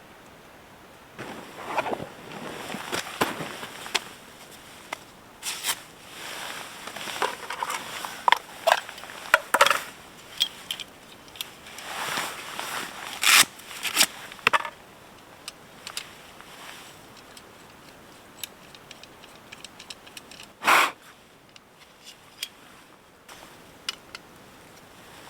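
Irregular close handling sounds: scrapes, clicks and rustles, busy in the first half, with one louder scrape about three-quarters of the way through.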